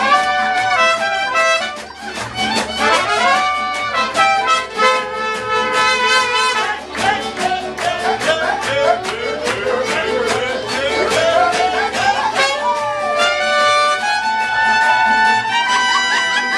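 Mariachi band playing live: guitars strummed in a steady rhythm under held melody notes, with people clapping along.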